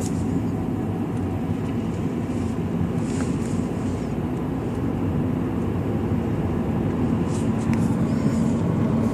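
2006 Subaru Legacy GT's turbocharged flat-four engine running at a steady, light-throttle cruise with road noise, heard from inside the cabin; the pitch neither rises nor falls.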